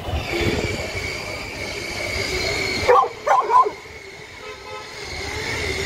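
A dog barking three quick times about halfway through, over a steady high-pitched tone that runs throughout.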